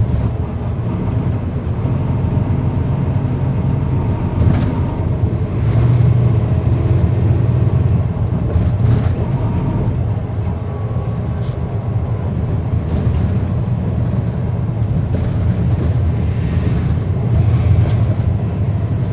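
Cummins ISL9 diesel engine of a 2010 NABI 40-SFW transit bus, heard from inside the bus while it is under way, with the engine cooling fans on. The engine runs steadily, its note swelling and easing several times, with brief rattles now and then.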